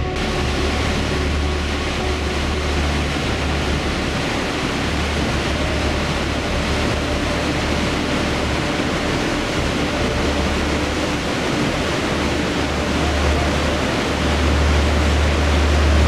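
Langfoss waterfall: the steady rush of a large volume of water pouring down rock slabs, with a strong low rumble under the hiss of spray.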